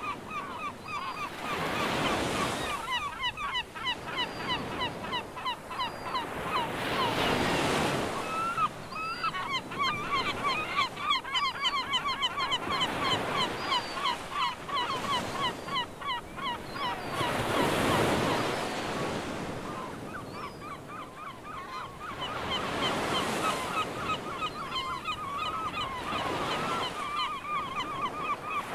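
A large flock of birds calling rapidly and continuously, over the wash of waves that swells and breaks about every five seconds.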